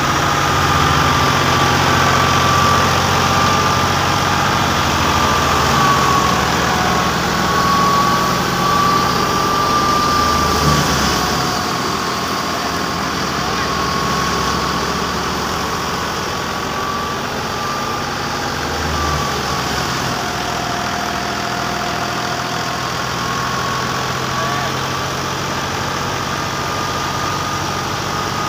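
Tractor engine running steadily while driving a thresher as bundles of crop straw are fed in: a constant low engine hum with a high whine that wavers slightly in pitch. The sound eases a little about twelve seconds in.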